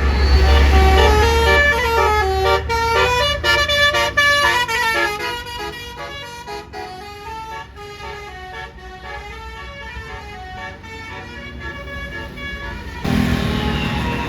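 Bus basuri telolet horn playing a melody of quick, stepped notes, over a deep engine rumble at first, growing fainter after about five seconds. Near the end a louder rush of road noise cuts in.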